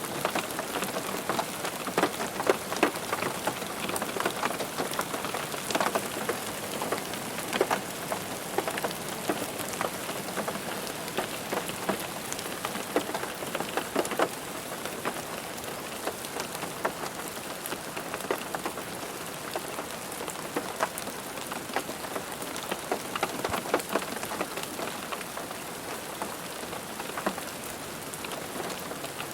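Rain falling on a car roof: a steady patter of drops, with many sharper individual drop hits standing out irregularly.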